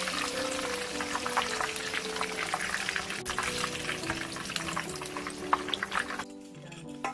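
Battered chicken wings deep-frying in hot oil in a wok during their second fry, a steady sizzle with many small crackles. The frying noise cuts off about six seconds in.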